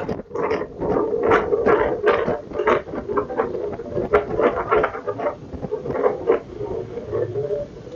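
Strong gusting wind buffeting the microphone and flapping a T-shirt in quick, irregular slaps.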